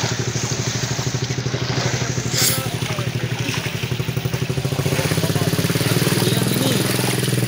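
A small engine running steadily with a fast, even pulse, a little louder from about five seconds in. There is one brief sharp noise about two and a half seconds in.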